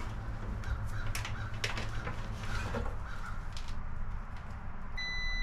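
Scattered light clicks of alligator-clip test leads being handled over a low steady hum; about five seconds in, a multimeter's continuity beep starts abruptly as a steady high tone, signalling a closed circuit through the wire under test.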